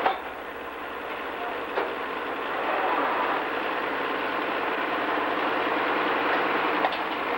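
Super Stock pulling tractor's turbocharged diesel engine running steadily at low speed while hooked to the sled, with a couple of short clicks.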